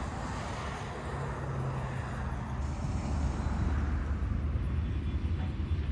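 Low, steady rumble of distant engines, growing stronger about three seconds in.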